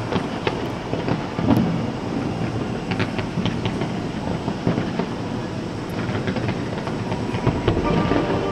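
Fireworks going off in a dense stream of crackles and pops over a steady rumble, with one louder bang about a second and a half in.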